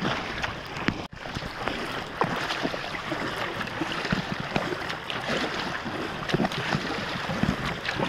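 Double-bladed paddle dipping and splashing in calm sea water as a stand-up paddleboard is paddled along, in irregular splashes, with wind on the microphone.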